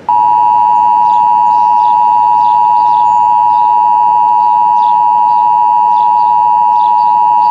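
Emergency Alert System two-tone attention signal: a loud, steady tone of 853 Hz and 960 Hz sounding together, held without a break. It announces that an alert message follows, here a statewide required monthly test.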